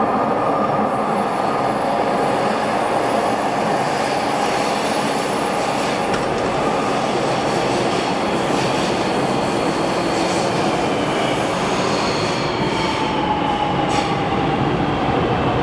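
Daegu Subway Line 1 train running into the station through a curved tunnel: a steady rumble of steel wheels on rail, with high-pitched wheel squeal from the curve. Near the end the squeal tones slide lower as the train slows.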